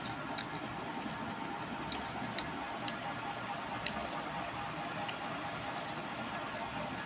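A hand handles syrup-soaked jilapi (jalebi) in a plastic bag, making soft sticky squishing and plastic crinkling sounds. A few irregular sharp clicks sound over a steady hiss.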